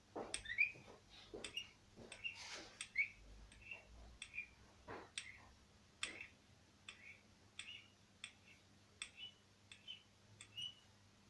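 Light clicks and knocks of hand tools and metal parts being worked on a chainsaw crankcase, about one a second and irregular, many followed by a short high squeak.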